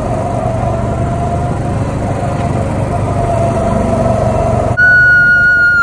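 Small go-kart engine running steadily while the kart is driven. About five seconds in, a loud steady high tone cuts in suddenly, louder than the engine.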